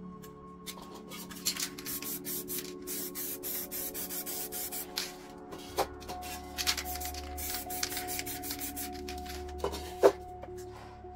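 Rapid, irregular rubbing and scraping strokes on a painting surface, over quiet background music with steady held tones. A single sharp click about ten seconds in.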